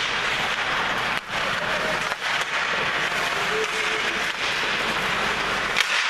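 Ice hockey play in a small indoor rink: a steady hiss of skates on the ice and rink noise, with a few sharp stick or puck clicks, the loudest near the end.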